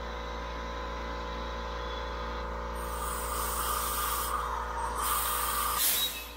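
Compressed air hissing as it leaks out of a small-block Chevy 350 cylinder, pressurised through a spark-plug air fitting, past a valve that is not fully closed. The hiss starts about three seconds in and is loudest just before it stops near the end, over a steady low hum.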